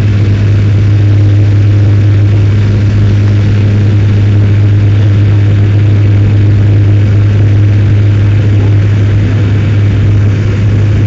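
Steady, loud airliner cabin noise during the climb just after takeoff: the jet engines and rushing air make an even drone over a strong low hum.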